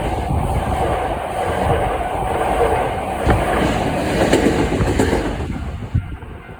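Hankyu electric commuter train passing over a level crossing: a steady rolling noise with a few sharp clacks of wheels over rail joints, fading away near the end.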